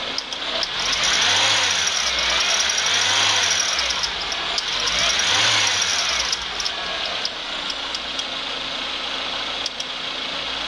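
Peugeot 206 XS engine revved up and down about twice, then settling back to idle. A high tone sounds while it revs, and faint ticks run throughout: the abnormal accessory-belt noise that appeared after the alternator was replaced.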